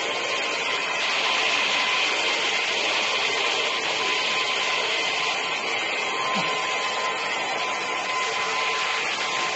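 Vacuum motor of a carpet-cleaning machine running steadily with its suction hiss. The hiss grows fuller about a second in and eases back a little past the middle.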